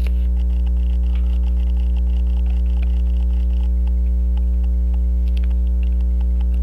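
Steady electrical mains hum, the loudest sound, with faint small clicks scattered through from a watchmaker's screwdriver working at the balance cock screw of a pocket watch movement.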